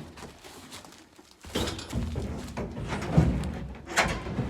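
A few knocks and dull thuds of wood being handled, with a sharp knock near the end.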